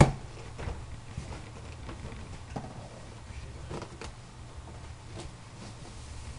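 Cardboard box being lifted and handled: a sharp knock right at the start, then scattered light knocks and rustles of cardboard, over a low steady hum.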